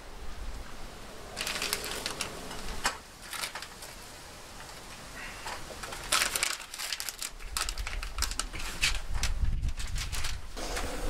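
Plastic zip-lock bag crinkling in irregular bursts as pieces of raw salmon are pulled out of it and laid on a smoker's wire rack.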